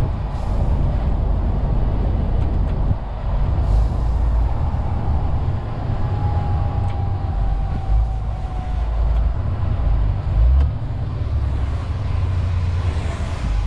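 MAN TGX 470 truck heard from inside the cab while driving: a steady low rumble of its straight-six diesel engine mixed with tyre and road noise. A faint whine falls slightly in pitch about halfway through.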